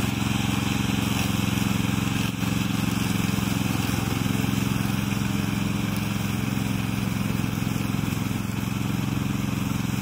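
Loncin petrol engine of a remote-control crawler lawn mower running at a steady pitch as the machine mows tall, dry grass.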